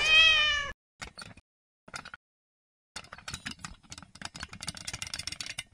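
A single creaking squeal, under a second long, rising slightly then falling in pitch, as the hanging wooden sign swings on its ropes. A few faint clicks follow, and from about halfway a soft clatter of small knocks and rustling.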